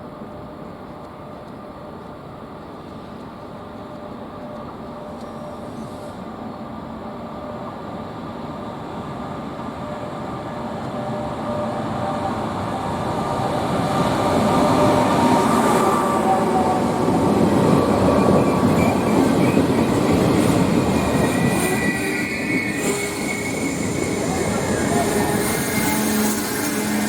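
A train approaches and passes close by, its rumble building steadily over about fifteen seconds and then staying loud. In the last few seconds high wheel squeal rings out.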